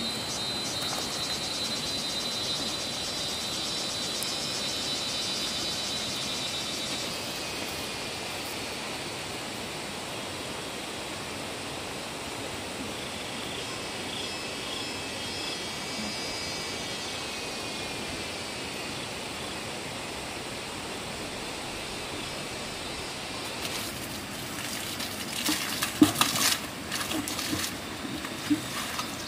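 Steady flowing water, with high thin tones over it at first and a run of sharp knocks and clatter in the last few seconds.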